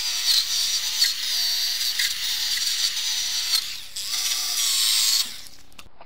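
Electric drill spinning a wire-wheel brush against a rusty steel sliding-door runner, stripping it to bare metal: a harsh, high scratching over the motor's whine, which rises and falls as the brush is pressed and eased. It stops a little after five seconds in.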